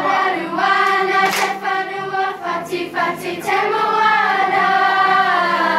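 A group of young school students singing a Māori song together in unison, holding long sung notes.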